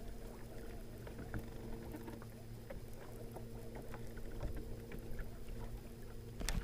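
A boat motor running steadily with a low, even hum, under scattered small ticks and light patter. A sharp knock comes right at the end.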